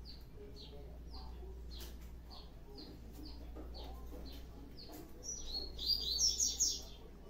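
Small bird chirping, a short, high, falling chirp repeated steadily a little under twice a second, then a louder, quicker burst of twittering in the last two seconds.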